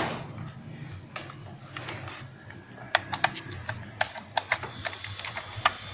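Plastic clicks and rattling of an electrical plug being handled and pushed into a power strip, then, about five seconds in, a refrigerator compressor starts and hums steadily. The compressor is being run directly through an alligator-clip jumper in place of its start relay, to test it.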